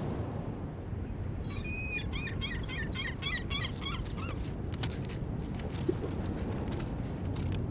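Added harbour ambience: a steady low rumble of background noise, with a quick run of bird calls from about one and a half to four seconds in, and scattered sharp knocks in the second half.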